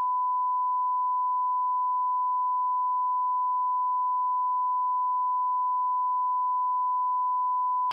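A steady pure beep tone near 1 kHz, one unbroken pitch with no other sound under it: a bleep dubbed over the footage in place of its audio. It cuts off suddenly at the very end.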